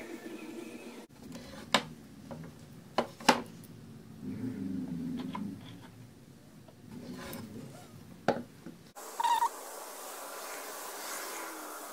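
Several sharp clicks of small brass hardware being handled and fitted to a wooden frame, with a low wavering sound between them. A steady hiss takes over near the end.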